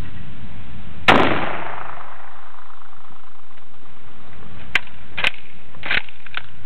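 A single shot from a Karabiner 98k bolt-action rifle, with a ringing tail that lasts about a second. A few seconds later come four short metallic clicks within under two seconds as the bolt is worked.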